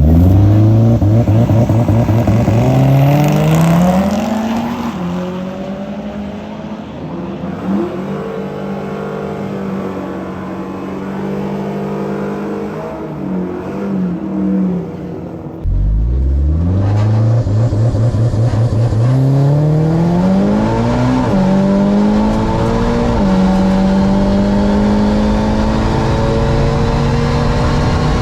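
Drag-racing car engine accelerating hard, its pitch climbing through the gears with a drop at each shift, then running steadier. About halfway through, after an abrupt cut, another hard acceleration climbs through two more gear changes.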